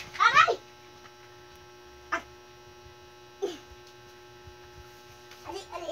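Small fluffy dog giving a few short whines, each falling in pitch, the loudest right at the start, over a steady electrical hum.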